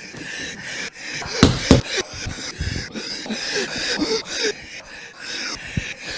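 A man's rapid, breathy gasps and pants, chopped into many short stuttering snippets with brief fragments of voice between them, edited to sound like an asthma attack.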